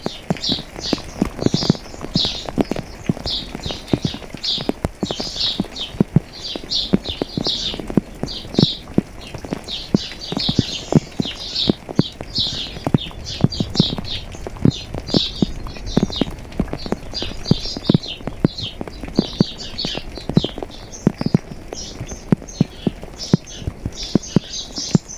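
Raindrops dripping and tapping close by, sharp taps several times a second at uneven spacing, under a steady chorus of birds chirping in short high notes.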